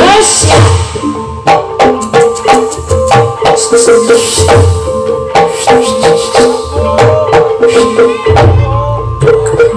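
Live ebeg accompaniment of Javanese traditional music: hand drums beating a busy, uneven rhythm over sustained ringing metallophone-like tones, with rattling percussion.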